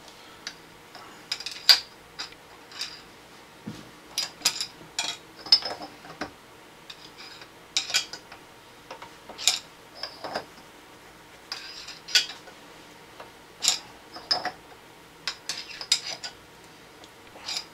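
Socket wrench being worked to tighten a nut onto a faucet valve body under a porcelain sink: a series of sharp, irregularly spaced metallic clicks and clinks.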